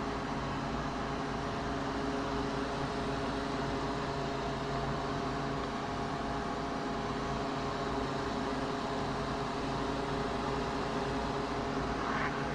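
Steady engine and road drone heard from inside a pickup truck's cab while driving.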